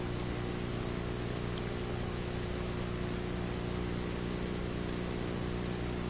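Steady hiss with a low, even hum underneath: the background noise of an old video recording, with no other sound standing out.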